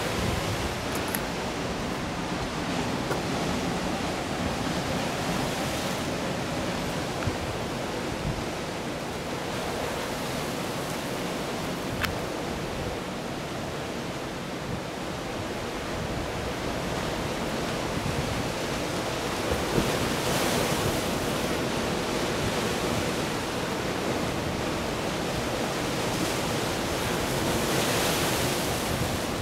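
Surf washing onto a rocky shore, a steady rush of breaking waves that swells louder a couple of times.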